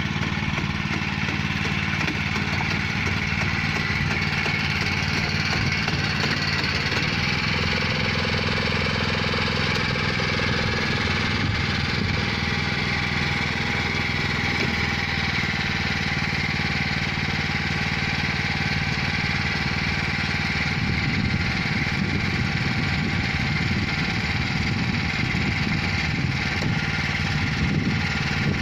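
Small engine of a mechanical rice transplanter running steadily as the machine plants rice, getting rougher and noisier in the second half.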